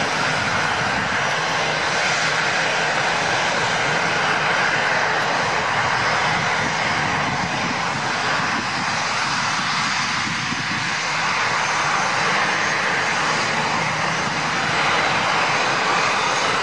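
HondaJet business jet's twin turbofan engines during touchdown and rollout: a steady rushing jet noise with a faint, constant whine in it.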